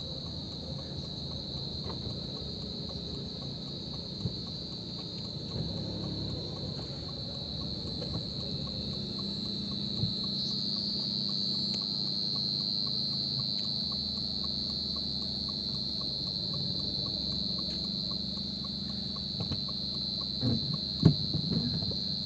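Crickets chirring in one continuous high, steady trill that rises slightly in pitch about halfway through, over a low steady hum.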